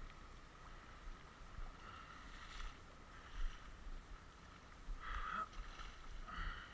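Faint splashing in shallow river water as a hooked Atlantic salmon thrashes at the surface, in a few short bursts about two and a half, five and six and a half seconds in, over a steady hiss of moving water.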